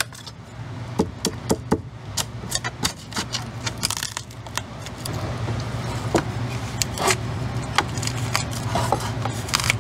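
A flat metal scraper blade prying and scraping along the edge of a cured fiberglass layup, releasing it from a wooden mold lined with PVA-coated tape. It makes a run of sharp clicks, crackles and scrapes, over a steady low hum.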